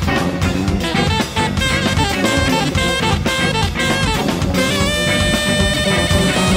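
Live instrumental jazz-funk band playing: saxophone, electric guitar, bass guitar, organ and drum kit. A busy run of short notes gives way, about five seconds in, to one long held note.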